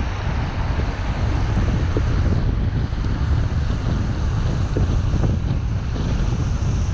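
Steady low rumble and hiss of a car travelling on a wet road: tyre noise with wind on the microphone, at an even level.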